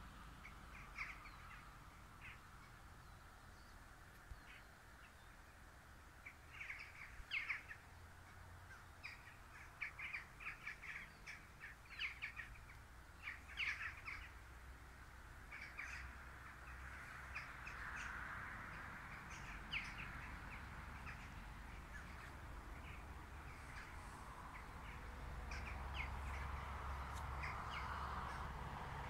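Birds calling: many short calls in quick succession, densest from about six to fifteen seconds in and thinning out afterwards, over a low steady rumble that grows near the end.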